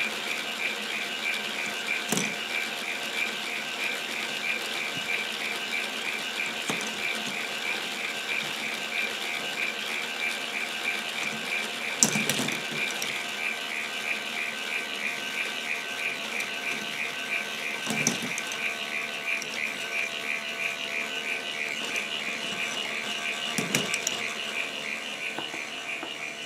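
K'NEX ball machine's plastic gear train turning under its motor with a steady, rapid clicking of gear teeth. A louder plastic knock comes four times, about six seconds apart, as balls are let through one at a time.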